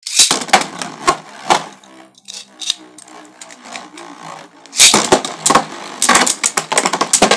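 Beyblade spinning tops launched into a plastic Beyblade stadium. A burst of sharp clacks as they land, then a steady whirr as they spin. From about five seconds in, rapid clattering as the tops clash with each other and the stadium walls.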